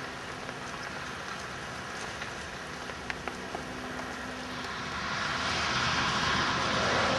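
Steady hiss of rain, with a few faint clicks about three seconds in; the hiss grows louder about five seconds in.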